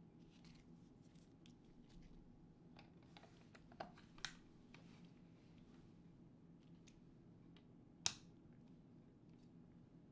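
Faint clicks and taps of small drone parts and a hand tool being handled at a workbench, over a low steady room hum; a few light clicks around four seconds in and one sharper click about eight seconds in.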